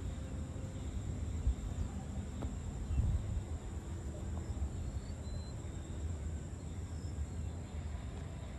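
Evening outdoor ambience: insects trilling steadily at a high pitch over a louder low rumble, with a few faint high chirps about halfway through.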